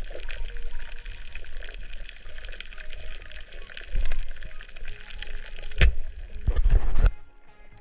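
Underwater sound through a camera housing: a constant fine crackle of clicks, then a sharp knock about six seconds in and a short burst of loud low rumble as a spear strikes a spiny lobster in seagrass. The sound drops off suddenly near the end.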